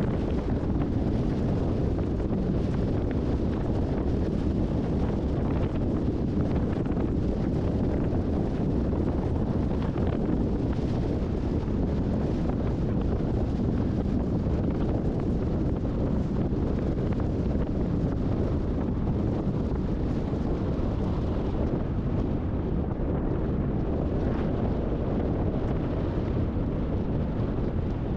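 Steady wind noise buffeting the microphone, a dense low rumble with no breaks.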